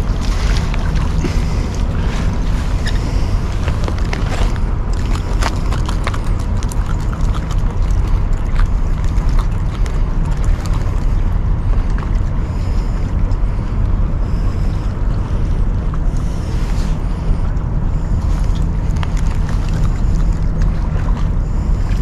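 Steady low rumble of wind buffeting the microphone, with scattered sharp clicks.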